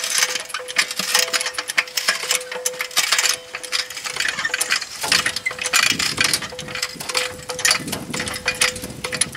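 Jack being pumped to raise a truck's lower control arm, with irregular metallic clicking and rattling as the arm rises toward the knuckle.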